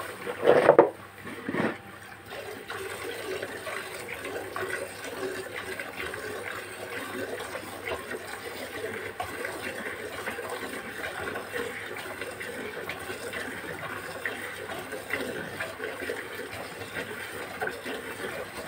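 Hand milking: rhythmic streams of milk squirting from the teats into a plastic bucket already holding milk, a steady frothy hiss of liquid. Two louder bumps come about a second in.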